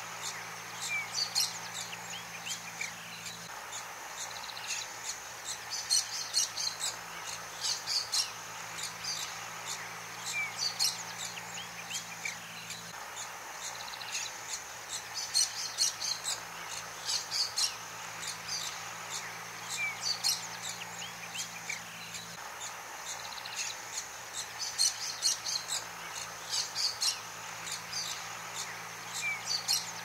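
Small birds chirping in clusters of quick, high notes every couple of seconds, with some short whistled glides. Underneath is a faint, steady low hum that drops out and comes back a few times.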